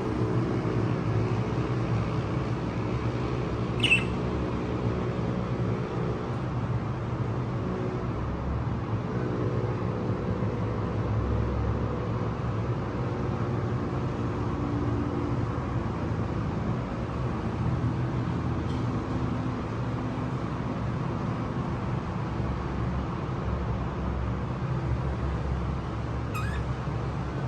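A steady low mechanical hum runs throughout. A budgerigar gives one short, sharp chirp about four seconds in, and two fainter chirps follow later.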